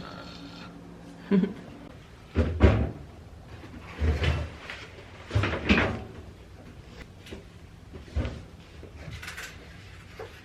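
A series of household knocks and thumps, about five, one every second and a half or so: doors or cupboard doors being opened and shut.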